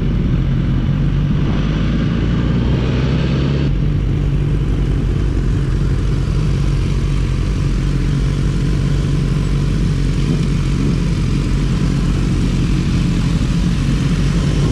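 Sport motorcycle engine running steadily under the rider, with road and wind noise; the sound shifts abruptly about four seconds in.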